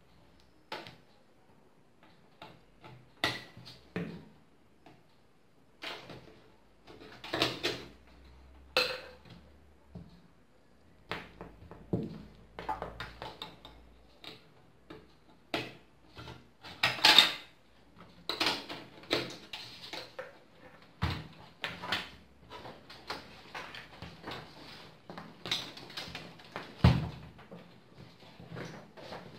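Irregular clicks, knocks and rustling as a bundle of power-supply cables is handled and pushed through a steel PC case.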